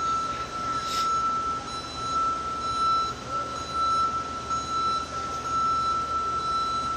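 A steady whining tone over a constant rushing machinery noise, with a brief sharp tick about a second in.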